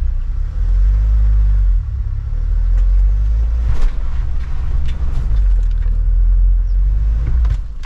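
Low, heavy rumble inside a camper van's cab as it drives slowly over a rutted dirt track, with scattered knocks and rattles from the rough ground.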